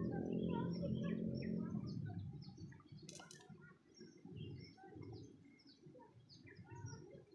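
Small birds chirping, many short calls overlapping throughout. A low steady hum runs under them for the first two seconds, and there is a single sharp click about three seconds in.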